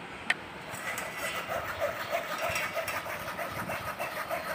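A spoon scraping and stirring thick ground paste against a stainless steel mesh strainer: a steady rough scraping with many small ticks, after a single sharp knock near the start.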